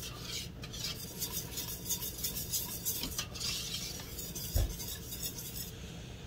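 A utensil stirring and scraping through thickening lemon curd in a saucepan on the stove, a soft repeated scrape against the pot, with one dull knock about four and a half seconds in.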